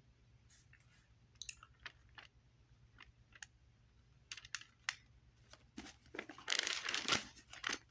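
Handling noise: scattered light clicks and rustles, then a longer burst of rustling near the end.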